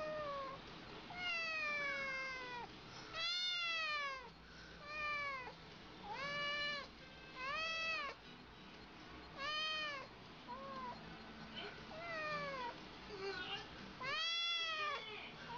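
A cat meowing over and over, about ten meows roughly a second apart. The first two are longer and fall in pitch; most of the rest are short and rise then fall.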